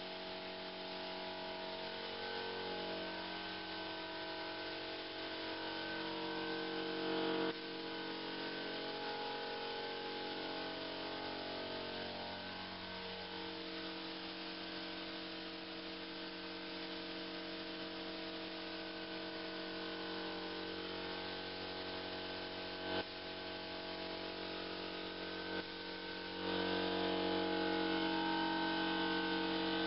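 Slow background music of sustained, held chords, changing every few seconds, growing louder near the end.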